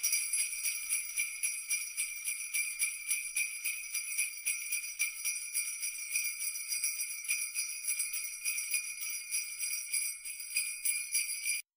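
Jingle bells shaken in a quick, even rhythm of several shakes a second, bright and high with no low sound under them, stopping abruptly near the end.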